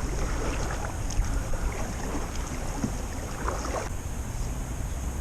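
A small boat's motor running steadily while the boat moves across the water, with wind on the microphone.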